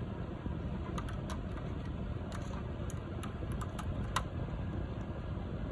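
Small plastic clicks and taps as a USB tester and USB-C adapter are handled and pushed into a USB charging port, the loudest about four seconds in. A steady low rumble runs underneath.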